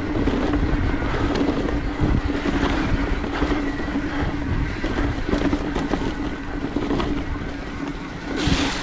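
Mountain bike running fast down a dirt singletrack, its tyres rolling over the trail with a steady hum and the bike knocking over bumps, wind buffeting the microphone. There is a brief louder rush near the end.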